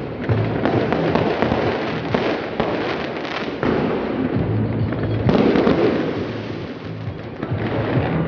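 Fireworks going off in a dense, continuous barrage of crackling and bangs, with a fresh loud surge of explosions about five seconds in.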